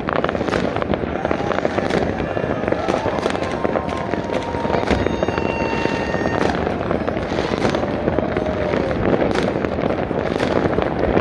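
Homemade New Year's fireworks and firecrackers going off all across a city, a dense, unbroken crackle of overlapping bangs, with a few thin whistling tones over it.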